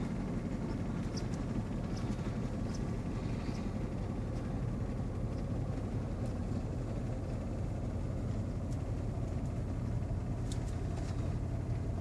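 Steady low rumble of a vehicle's engine and running gear heard from inside the cab, with a few faint light ticks.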